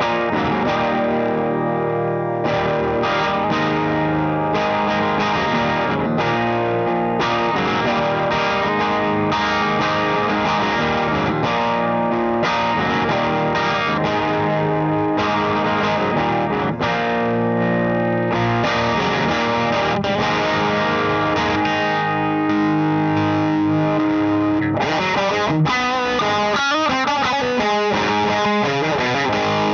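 Electric guitar played through an LPD Pedals Sixty8 Deluxe pedal into a Satellite Neutron tube amp, a continuous overdriven passage of picked notes and chords. Near the end the notes waver in pitch.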